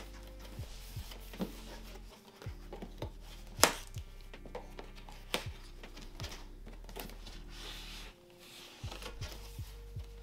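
Cardboard box being opened and handled: scattered light taps and knocks, with one sharper click about three and a half seconds in.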